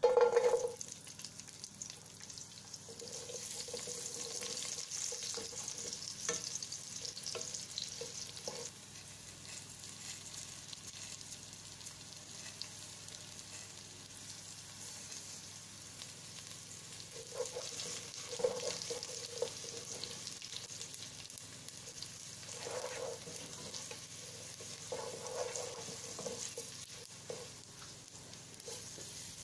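Garlic cloves sizzling as they are fried in hot oil in a nonstick pot. There is a loud burst of sizzle as they drop in, then steady frying. A wooden spatula stirs and scrapes at intervals.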